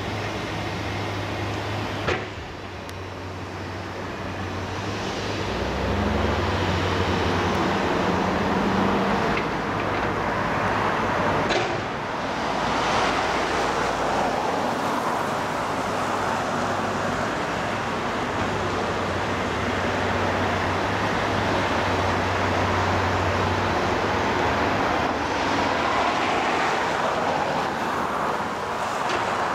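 Komatsu PC210 hydraulic excavator's diesel engine running steadily, rising in level a few seconds in as it works under load. There is a sharp click about two seconds in and a knock near the middle.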